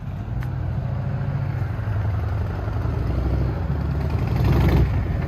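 Exhaust rumble from a 2021 Harley-Davidson Fat Boy 114's Milwaukee-Eight 114 V-twin fitted with a Big Radius exhaust, growing louder as the bike rides closer.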